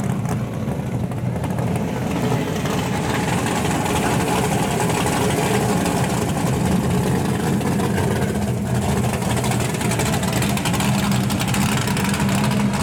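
Engine of a pro street Plymouth Duster muscle car running at low speed as it rolls past and pulls away, steady and loud, growing a little louder about two seconds in.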